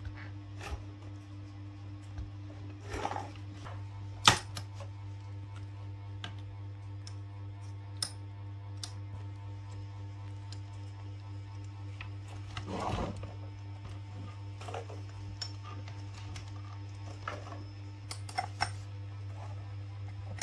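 Scattered clicks and knocks of a plastic toy dump truck and toys being climbed on and handled by baby macaques, the sharpest one about four seconds in, over a steady low hum.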